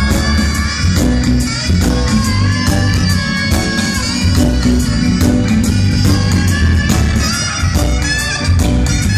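Reggae band playing live with a steady bass line and drums, and a soprano saxophone playing a melody over them.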